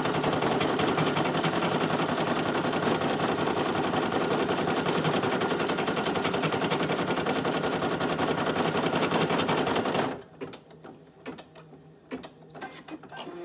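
Brother PE800 single-needle embroidery machine stitching out a design, a fast even clatter of needle strokes. It stops suddenly about ten seconds in, as a colour section finishes, leaving a few faint clicks.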